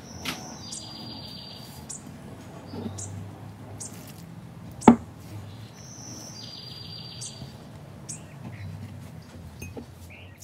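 Birdsong ambience: high chirps and a rapid high trill lasting about a second, heard twice. A single sharp knock comes about five seconds in.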